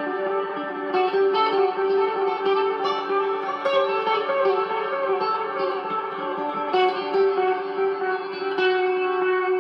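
Electric guitar played through a chorus pedal, its depth around 11 o'clock and its speed all the way up, with reverb on. Picked notes ring on into a shimmering, overlapping ambient wash, with new notes struck every few seconds.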